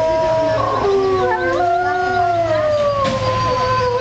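A pack of wolves howling together in chorus: several long, held howls overlap at different pitches, the higher ones sliding slowly downward.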